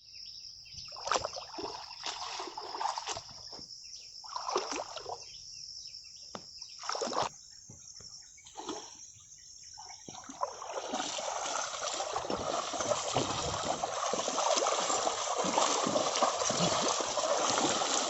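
Muddy water splashing and sloshing as a bull drags a plough through a flooded paddy field. The splashes come one at a time for the first ten seconds or so, then run on without a break from about eleven seconds in.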